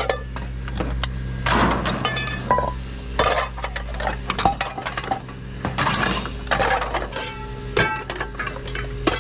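Hard objects, some of them metal, being rummaged through and knocked together: repeated clinks and clatters, several with a brief metallic ring, over a steady low hum.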